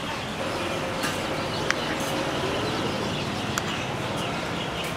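Steady background hubbub with birds chirping over it, and a couple of sharp clinks of metal cutlery against a plate.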